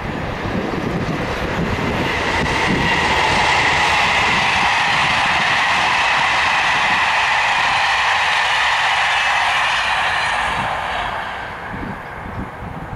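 Passenger train of an electric locomotive and Corail coaches passing at speed: steady rolling noise of wheels on rails that builds over the first couple of seconds, holds, and fades away about eleven seconds in. Wind on the microphone gusts under it near the start and end.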